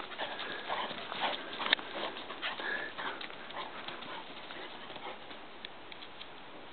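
A puppy's paws running over thin snow on grass and dry leaves: a quick patter of crunching steps and scuffs, busiest in the first few seconds, then thinning out as she slows to a trot.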